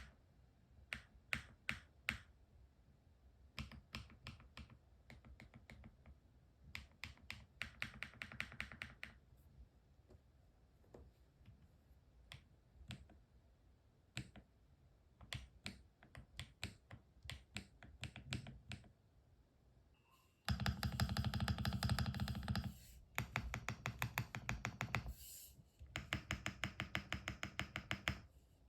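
Qsenn aluminium-case mechanical keyboard being typed on: single keystrokes and short runs of clicks, then from about twenty seconds in a loud, fast, dense flurry of typing for a couple of seconds, followed by more quick runs of keystrokes.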